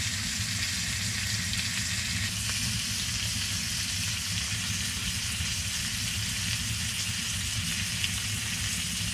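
Ribeye steak sizzling steadily in butter in a frying pan on a wood stove.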